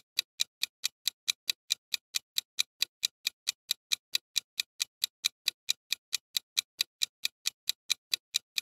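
Clock-ticking sound effect for a quiz answer countdown timer: fast, even ticks, about four and a half a second, marking the time running out for an answer.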